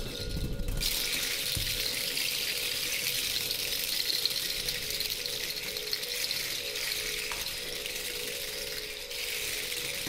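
Continuous rushing, hissing friction as a handheld bundle of small objects is pressed against a spinning percussion turntable, starting about a second in. Under it a few sustained tones hold steady.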